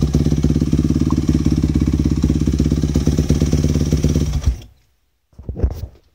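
Yamaha YZ250F's 250 cc four-stroke single-cylinder engine running at a steady idle with a fast, even putter, then cutting out abruptly about four and a half seconds in. A few faint knocks follow near the end.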